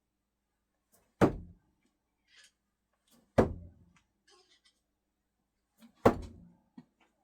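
Three thrown flat-head screwdrivers hitting the throwing target one after another, about two to two and a half seconds apart, each a sharp thunk with a brief ringing tail.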